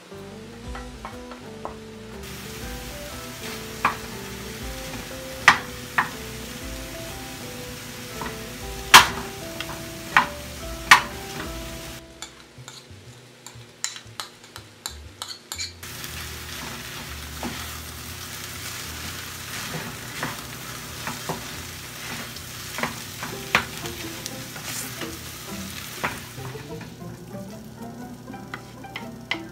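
Food sizzling in a frying pan as it is stirred, with sharp clinks of the utensil against the pan over light background music. About midway the sizzle drops out for a few seconds, leaving only scattered clinks, then returns.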